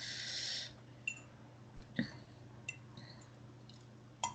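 Faint, scattered clicks and light clinks, like eating utensils touching a dish, about five in all, after a short hiss at the start.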